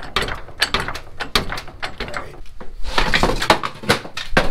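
Rapid metallic clicking, about three or four clicks a second, from a car lift's swing arm being positioned under a pickup truck, with a short scraping hiss about three seconds in.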